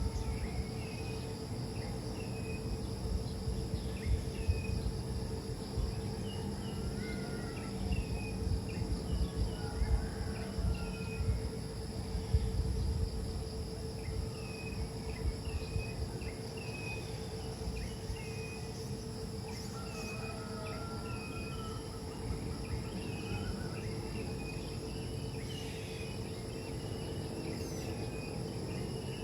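Rural night-time-style ambience: a steady drone of insects with many short, repeated chirps throughout, over a low, uneven background noise and a faint steady hum.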